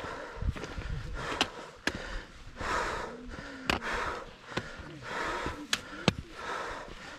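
A hiker breathing hard, with loud breaths swelling and fading about every second and a half, and scattered sharp taps in between.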